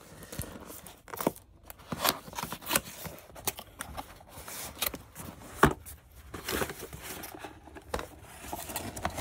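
Cardboard packaging being handled as a box is opened and its contents slid out: irregular scrapes, clicks and rustling of cardboard and a crinkly non-woven fabric bag, with one louder sharp knock a little past halfway.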